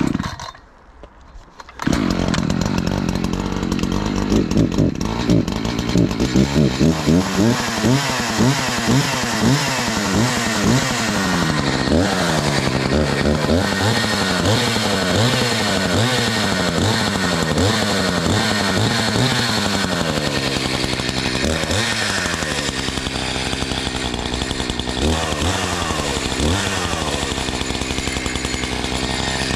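Two-stroke chainsaw starting about two seconds in, then revved up and down again and again as it cuts. It settles into a steadier run under load, sawing into the stump of a hung-up tree.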